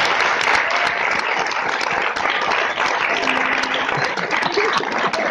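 An audience applauding: many hands clapping in a dense, steady patter that goes on throughout.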